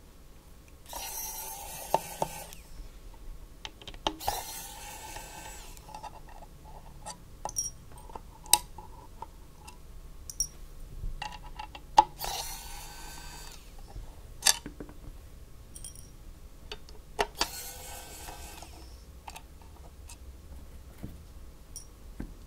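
Screwdriver turning screws in a metal keyboard case: four scraping spells of about one and a half to two seconds, each with a metallic ring, with small clicks and taps of parts in between.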